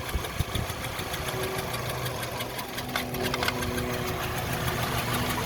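VW Golf Mk5 1.6-litre four-cylinder petrol engine idling roughly and unevenly, with irregular ticks and knocks: the engine is misfiring, with a cylinder 4 misfire code stored even after new coil pack and spark plugs.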